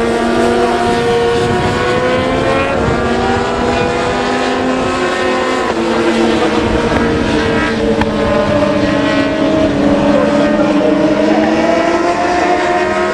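Several 600cc supersport racing motorcycles at high revs, their overlapping engine notes rising and falling as the pack passes through a corner.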